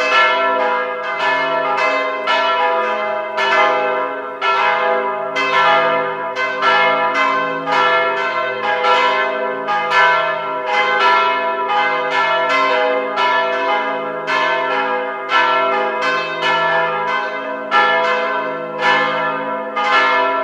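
Church bells rung in changes: an even run of strokes, about two a second, each one ringing on into the next.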